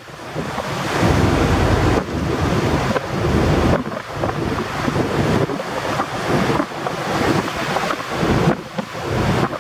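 Strong wind buffeting the microphone in gusts, over the wash of a rough, choppy sea.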